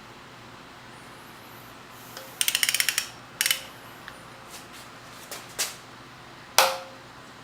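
Ratchet wrench clicking in a quick run about two seconds in, then a few separate sharp metal clinks of tools on the engine. The loudest clink comes near the end with a short ring. A steady low hum runs underneath.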